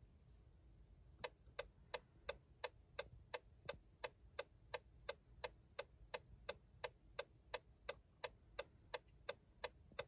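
2020 Honda Insight's turn-signal/hazard flasher ticking with the hazard lights on: a steady run of evenly spaced clicks, about three a second, starting about a second in.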